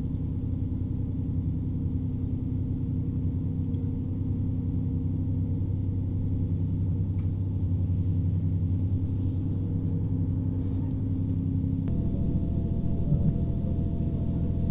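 Single-car diesel railcar heard from inside the cabin, its engine running with a steady low drone as the train pulls out of a station and gathers speed. About twelve seconds in the engine note changes and a steady higher whine joins in.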